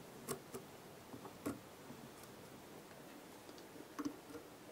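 A few faint, short clicks from the bobbin and fingers while red tying thread is wound onto a hook held in a fly-tying vise, over quiet room tone.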